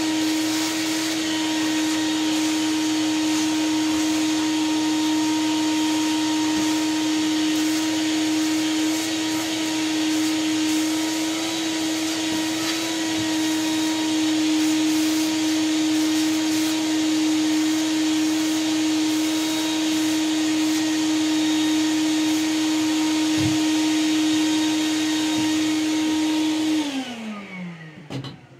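Vacuum cleaner running steadily, sucking out the inside of a wood stove, then switched off near the end and winding down with a falling whine.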